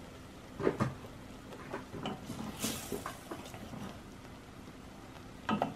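Wooden spoon stirring coconut milk and curry paste in a stainless steel pot, knocking against the pot a few times, loudest about a second in and again near the end, with a brief scrape between.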